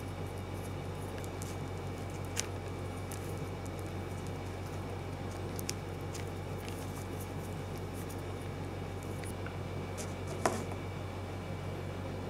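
Electrical tape and thin wires being handled while the tape is wound around a wire splice: a few faint small clicks and rustles, the sharpest about ten seconds in, over a steady low hum and hiss of room noise.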